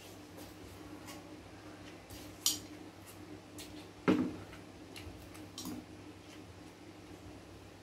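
Metal spoon clinking and scraping against a bowl and plate while eating, in scattered short clicks, with a sharp clink about two and a half seconds in and a louder knock about four seconds in.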